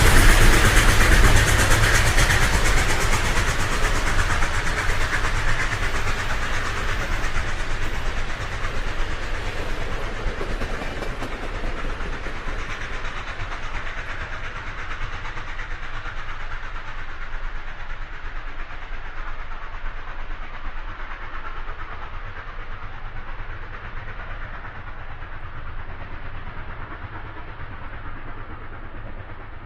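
A train running on the rails, loud at first and then fading steadily as it moves away, the rumble and rail noise losing their high end as it goes.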